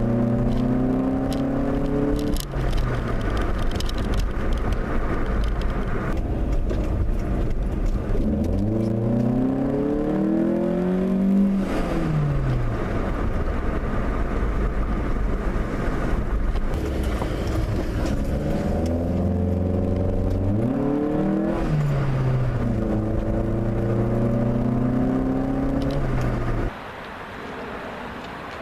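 2008 Hyundai Accent's 1.6-litre four-cylinder, breathing through a short ram intake, accelerating through the gears. The engine note rises in pitch, then drops sharply at each shift, several times over, and falls away quieter near the end.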